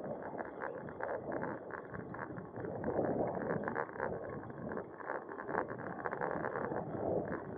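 Riding noise of a bicycle, heard from a camera mounted on the bike: a steady rush of road and wind noise with frequent small clicks and rattles.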